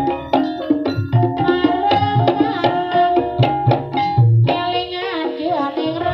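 Javanese gamelan music accompanying an ebeg dance: kendang hand-drum strokes with deep thumps, sustained pitched metal percussion and a wavering sung melody. The low drumming pauses briefly about five seconds in.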